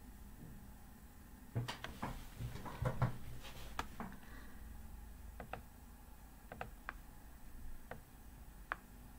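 Computer mouse clicking: a quick cluster of clicks with a few dull knocks in the first few seconds, then single sharp clicks about once a second.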